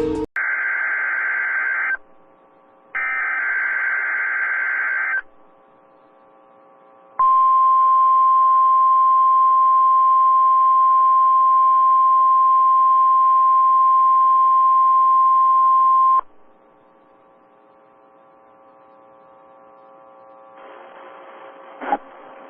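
NOAA Weather Radio Emergency Alert System test heard through a radio receiver. Two harsh, buzzy digital SAME header bursts come in the first five seconds. The steady 1050 Hz warning alarm tone follows for about nine seconds and cuts off sharply, leaving faint receiver hiss with a click near the end.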